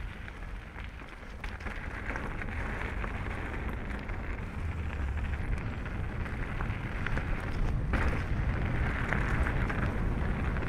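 Canyon Strive full-suspension mountain bike rolling fast over a gravel singletrack: a continuous crunch and hiss of tyres on loose gravel with scattered clicks and rattles from stones and the bike, under a low wind rumble on the camera microphone. It grows louder over the second half as speed picks up.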